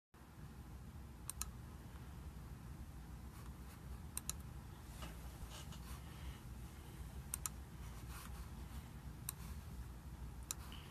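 Computer mouse clicking: about five sharp clicks, most in quick double-click pairs, a few seconds apart, over a low steady hum.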